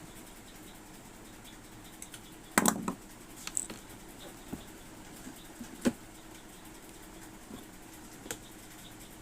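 Scattered clicks and light knocks over a faint steady hum, the loudest about two and a half seconds in and another near six seconds.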